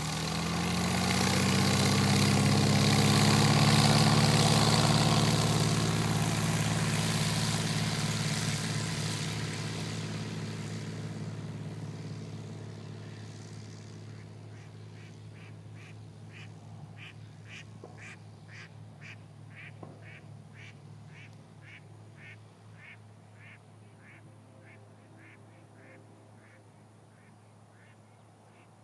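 Cessna 170's six-cylinder Continental engine at full takeoff power, rising in pitch as the throttle comes up, then fading steadily as the plane rolls away down the runway and climbs out. From about halfway on, a series of short chirps repeats about twice a second.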